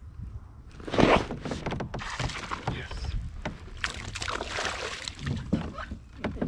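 A small hooked fish splashing at the surface beside a kayak as it is reeled in on a baitcasting rod and lifted out of the water. The commotion starts suddenly about a second in and goes on as a run of splashes and knocks.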